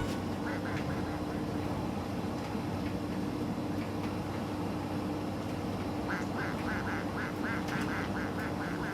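Miele T5205 tumble dryer running with its door open: a steady motor hum, with a rhythmic squeak about four times a second that fades in and out and grows plain from about six seconds in.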